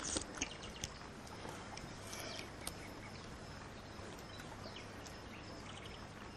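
Quiet background ambience with faint, short bird chirps at several points and a few soft clicks in the first second.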